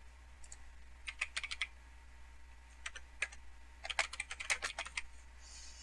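Typing on a computer keyboard in short runs of keystrokes: a quick run about a second in, a couple of separate keys around three seconds, and a longer flurry about four seconds in. A steady low hum sits underneath.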